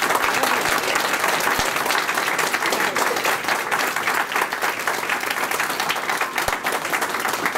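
Audience applauding steadily at the end of a song, a dense mass of hand claps.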